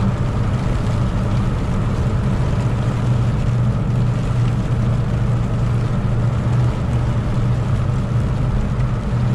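Semi truck's diesel engine running with a steady low drone under road noise while driving, with no change in pitch or level.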